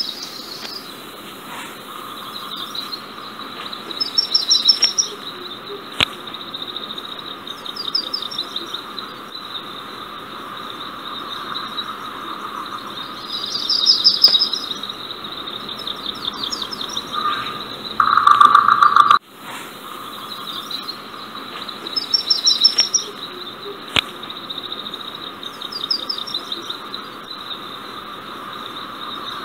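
Birds chirping and singing: a steady high chorus with short trilling calls every few seconds and one louder, brief call about two-thirds of the way through.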